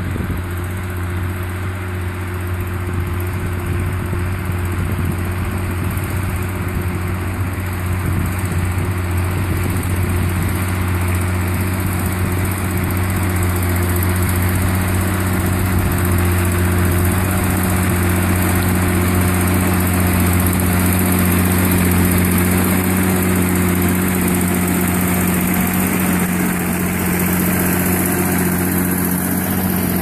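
Massey Ferguson 8450 tractor's diesel engine running steadily under load as it pulls a reversible mounted plough through the soil. It grows louder as the tractor approaches and is loudest about two-thirds of the way through.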